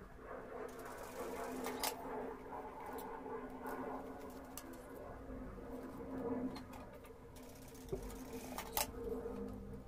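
A corduroy cap being handled and repositioned at an industrial sewing machine: cloth rustling and a few sharp clicks, the loudest near the end, over a steady low hum.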